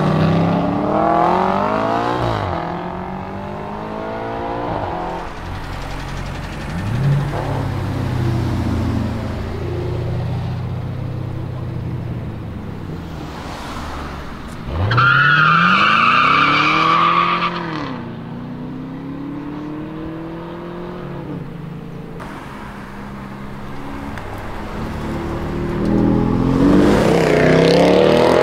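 A procession of performance cars accelerating away one after another, engines revving hard and falling back. A Mercedes SLR McLaren goes first, then a Chevrolet Camaro, whose sharp rev about halfway through comes with a high squeal lasting about two seconds. A Mercedes C63 AMG estate revs loudest at the end.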